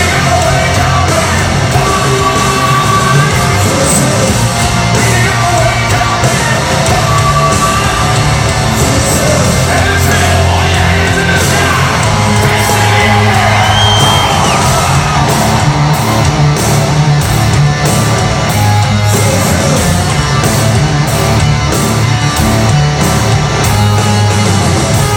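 Loud hard rock music with heavy guitars and drums and a sung, at times yelled, vocal.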